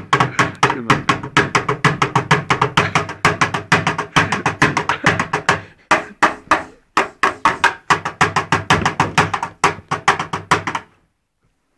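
Upturned plastic bucket beaten with a pair of drumsticks like a drum: a fast run of strikes, about seven a second, with a short break about six seconds in, stopping about eleven seconds in.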